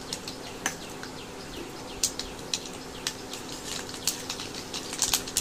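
Mustard seeds sizzling in hot oil in a steel wok, with scattered small pops and crackles over a faint steady hum.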